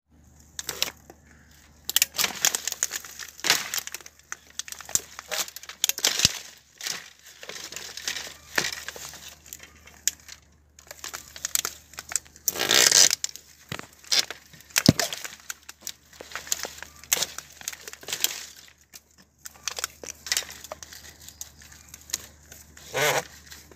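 Long-handled bypass loppers cutting through green bamboo culms: a run of irregular sharp snaps and crunches as the blades bite and split the stems, with one longer crunch about halfway through.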